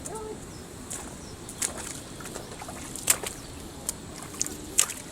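Steady rush of river water with a few short, sharp splashes.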